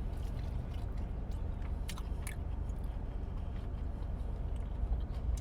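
Close-up chewing and biting of chicken wings, with a few faint sharp clicks, over a steady low rumble.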